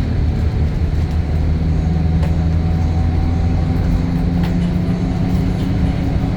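DAF Euro 5 diesel engine of a Temsa Avenue LF 12 low-floor city bus running under way, with a steady low drone that rises slightly in pitch over a few seconds.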